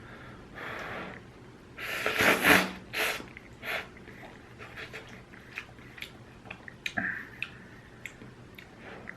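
Ramyun noodles slurped in a few noisy pulls, the loudest about two seconds in, followed by chewing with small scattered clicks.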